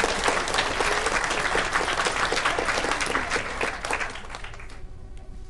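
Audience applauding, the clapping fading out about four and a half seconds in.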